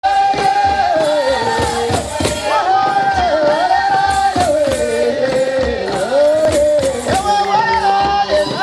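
Rwandan traditional dance song: a sung melody in long, gliding phrases over regular percussive strikes.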